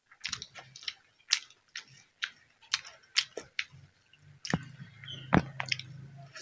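Close-up chewing of crisp food, with sharp crunches and wet mouth sounds. A low steady hum runs under the chewing over the last two seconds.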